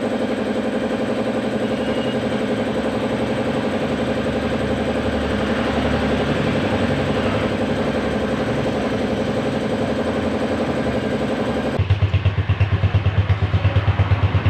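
Racal 150 motorcycle engine idling steadily. About twelve seconds in the sound changes abruptly to a deeper, strongly pulsing beat.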